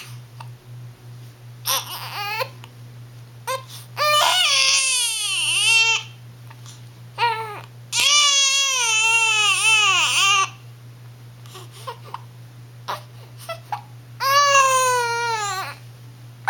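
One-month-old baby girl crying: three long wails, each a second and a half to two and a half seconds, that waver and fall in pitch at the end, with short cries between them.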